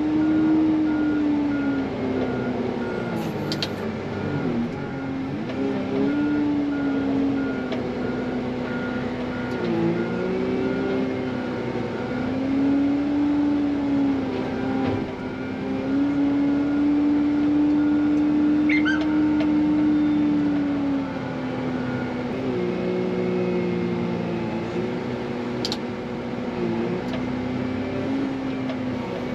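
XCMG wheel loader's diesel engine running under load while plowing snow, its pitch repeatedly rising and falling as the throttle changes, with the reversing alarm beeping steadily until about two-thirds of the way through.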